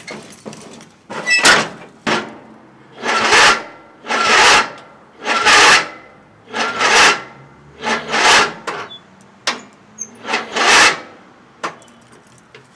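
A series of rasping scrapes, roughly one a second, each about half a second long.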